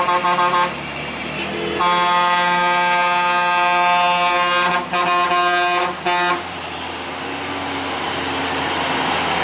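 Truck air horn sounding at a hairpin bend: a few quick toots, then one long blast of about three seconds, then two short blasts. Truck engines and traffic run underneath and carry on after the horn stops.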